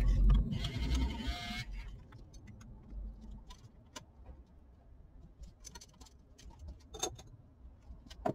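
Small handheld battery frother whirring as it mixes a thick white serum in a glass beaker, stopping abruptly about two seconds in. A few faint, light taps follow.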